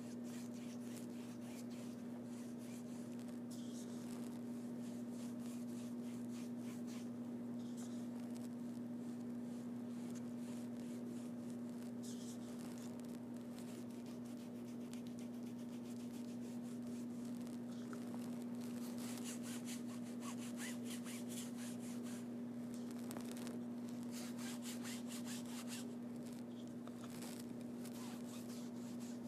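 Paintbrush rubbing across a stage backdrop in many short strokes, coming thickest in a run in the second half, over a steady electrical hum.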